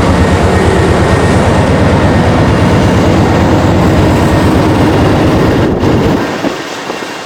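Train passing close by: a loud, steady rumble of the locomotive and cars on the track, dying away near the end.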